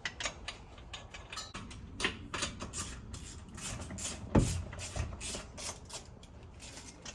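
Irregular light clicks and knocks of tools and metal parts being handled, with one heavier thump a little past the middle.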